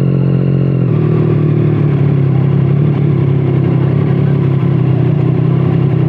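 2017 Triumph Street Triple 765RS inline-three engine through a Scorpion Serket aftermarket exhaust, running at steady revs, with a slight change in pitch about a second in.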